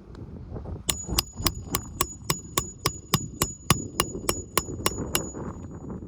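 Hammer striking about sixteen quick, evenly spaced blows, about three or four a second, each with a high metallic ring that carries on between them.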